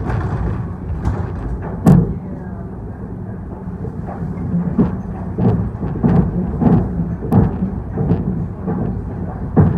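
ED4M electric train running, a steady low rumble with a run of sharp wheel knocks over the rail joints, a few of them much louder than the rest.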